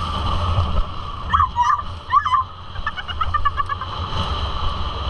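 A 1996 Suzuki LT80 ATV's small two-stroke single-cylinder engine running low and steady. From about a second in, a string of short, high calls that fall in pitch sounds over the engine.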